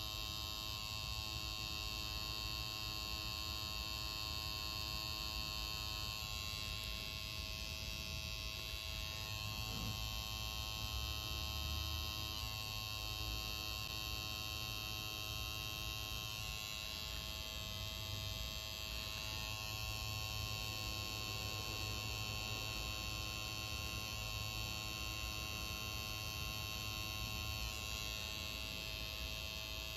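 Tattoo machine running with a steady electric buzz as the needle works ink into skin, its pitch shifting slightly now and then.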